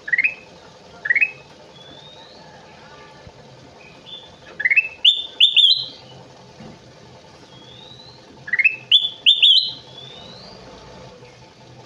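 Kutilang emas (a bulbul) singing in short bursts of quick, upward-sweeping whistled notes: a couple of notes at the start, a cluster of three or four about halfway through, and another cluster near the end.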